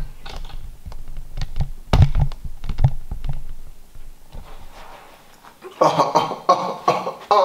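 A chair being shifted and bumped: a quick run of knocks, taps and thumps over the first three seconds, then scattered lighter clicks. Near the end, a short muffled voice-like murmur.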